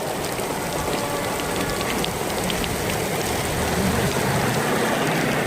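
Steady heavy rain falling, an even hiss with scattered ticks of drops striking surfaces.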